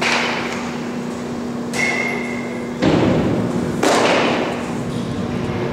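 A few thuds and knocks echoing in a large indoor hall, the loudest about three seconds in, over a steady low hum.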